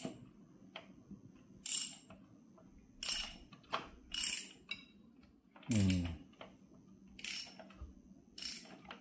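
Short spurts of metallic clicking, about one every second or so, as a bare used engine is turned over by hand at the crankshaft. About six seconds in there is one louder, lower falling groan.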